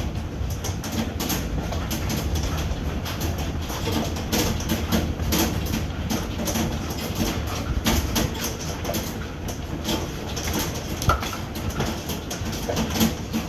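Hailstones pelting down in a dense, irregular patter of hard hits, over a steady low rumble.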